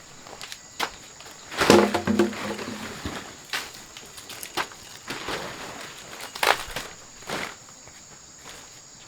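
Footsteps and scattered knocks and rustles from outdoor manual work, with a louder clatter about two seconds in.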